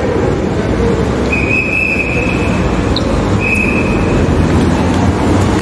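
Steady low rumble of cars moving and idling in a covered driveway. A high, steady tone sounds twice over it: once about a second in, lasting over a second, and again a little after three seconds, more briefly.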